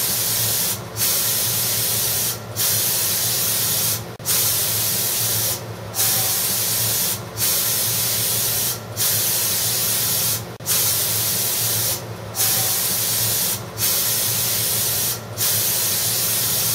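Spray hissing in even bursts of about a second and a half. Each burst is broken by a short pause, over a low steady hum.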